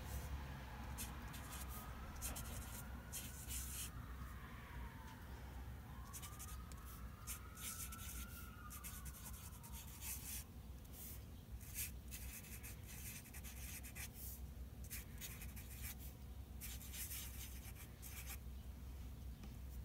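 Felt-tip Sharpie marker scratching across paper in short, uneven strokes of handwriting, over a faint steady low hum.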